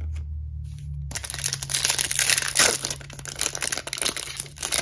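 Foil wrapper of a 2021 Topps Chrome WWE trading-card pack crinkling and tearing as it is ripped open by hand, starting about a second in.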